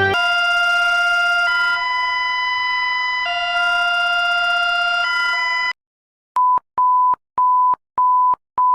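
Emergency alert alarm tones: a steady chord of alarm tones that switches back and forth between two pitches every second or two, cutting off suddenly about six seconds in. After a short pause come short, evenly spaced beeps at one pitch, about two a second.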